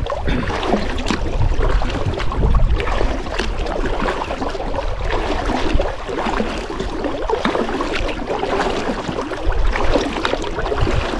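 Kayak paddle dipping and splashing in the water, with water gurgling along the hull.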